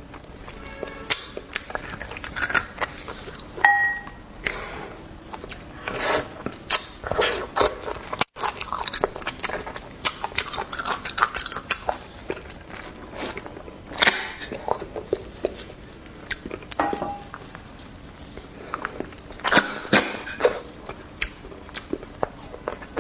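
Close-up eating sounds: bone marrow being sucked and slurped from the bones and chewed, with irregular wet clicks and smacks.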